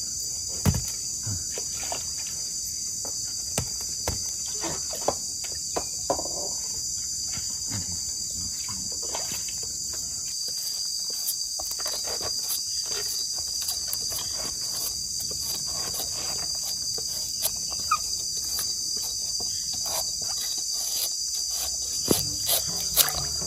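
A steady high-pitched insect chorus, with scattered clicks and scrapes of a large kitchen knife shaving and cutting a fresh bamboo shoot, a few louder ones near the start and near the end.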